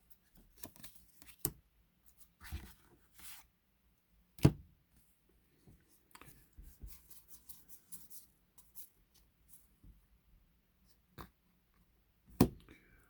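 Pokémon trading cards and a foil booster pack being handled: scattered light clicks, taps and short crinkling rustles, with a sharp knock about four and a half seconds in and another near the end.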